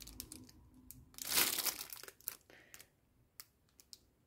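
Plastic packaging crinkling and rustling as small items are handled, with a louder rustle about a second in, then a few small clicks.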